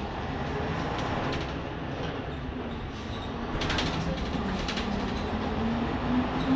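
Jelcz 120M/3 city bus heard from inside near the front while under way, its WSK Mielec six-cylinder diesel pulling steadily over a rumble of tyres and body rattles. The engine note drops briefly about four and a half seconds in, then climbs steadily in pitch as the bus gathers speed.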